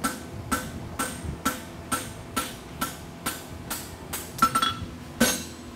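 Hand hammer striking a glowing steel bar on an anvil, about two blows a second in a steady rhythm, each with a short ring: upsetting the end of the bar to forge the heel of a horseshoe.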